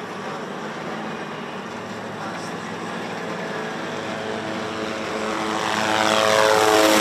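A heavy engine runs steadily, then grows much louder over the last two seconds as it passes close, its pitch dipping slightly as it goes by.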